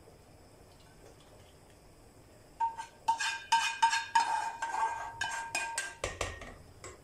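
A metal spoon scraping and knocking against a frying pan and the rim of a steel pot as oil is scraped out of the pan: a run of quick, ringing metallic clinks that starts about two and a half seconds in, after a quiet start.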